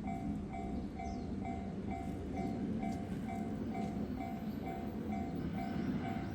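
Japanese level-crossing warning bell ringing steadily at a little over two strokes a second, over the low rumble of a six-car 211 series + 313 series electric train passing through the crossing.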